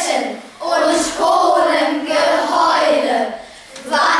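A class of children speaking an alliterative German poem together in chorus, in rhythmic lines with short breaths between them.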